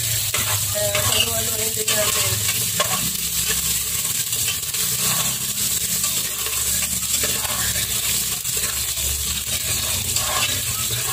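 Chopped onions sizzling steadily in hot cooking oil in a pot, stirred with a metal ladle that scrapes against the pot now and then.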